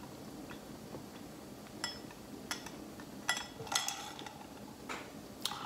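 Ice clinking in a glass with a straw as the drink is handled, with scattered light clinks that are thickest around three to four seconds in.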